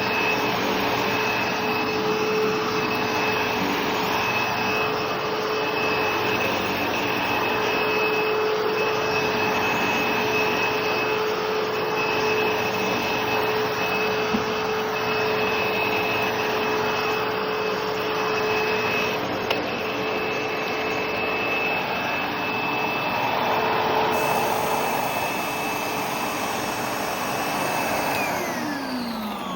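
ProTeam ProGen 15 commercial upright vacuum cleaner running steadily with a constant whine over a rushing airflow. Near the end it is switched off, and the motor's pitch falls as it spins down.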